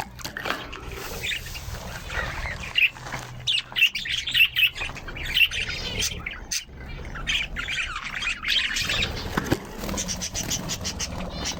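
Budgerigars chirping and squawking in a busy run of short calls, with a fast chattering trill near the end.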